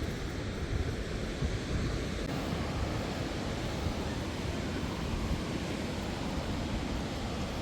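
Ocean surf washing onto the beach, a steady rushing noise, with wind rumbling on the microphone.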